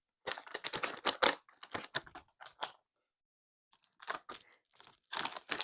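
Plastic candy packaging crinkling and crackling as it is handled, in quick irregular crackles that stop for about a second midway.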